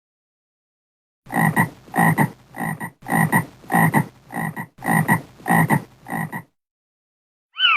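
Frog croaking: a regular run of about ten short croaks, roughly two a second, starting about a second in.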